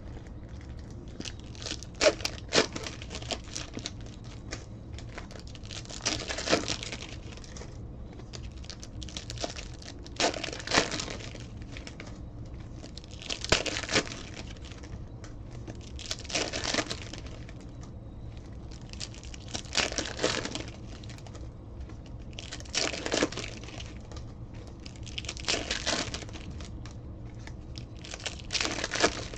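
Baseball card pack wrappers being torn open and crumpled by hand, one after another, with a crinkly rip about every three seconds. A steady low hum runs underneath.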